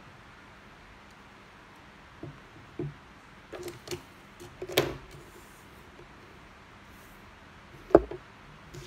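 Coloured sticky-note pads and paper being handled and set down on a wooden table: a few soft taps and a brief paper rustle, then a sharper knock near the end, over a steady low hiss.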